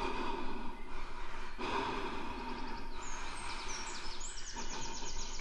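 Slow, heavy breathing close to the microphone: a few long, drawn-out breaths, with birds chirping high in the background from about halfway through.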